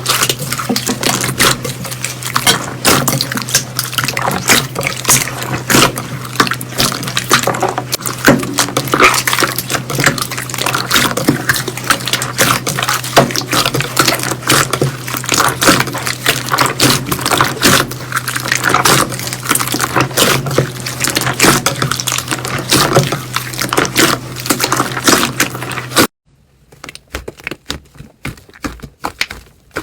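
Slime being squeezed and kneaded by hand: a dense, continuous run of wet pops, squelches and crackles over a steady low hum. Near the end it changes abruptly to fainter, sparser clicks.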